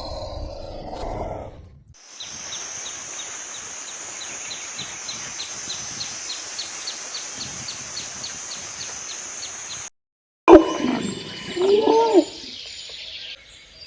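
A run of animal calls with short gaps between them. First a low, rough call fading out, then a steady high hiss with evenly spaced chirps about three a second, then loud calls that rise and fall in pitch.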